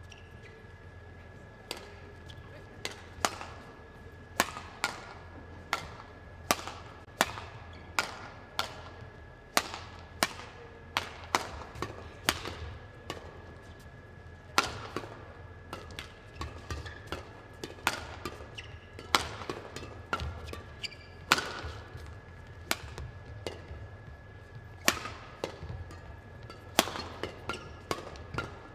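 Badminton racquets striking a shuttlecock in a fast back-and-forth rally: sharp, crisp hits about one to two a second, over a faint steady hum of the hall.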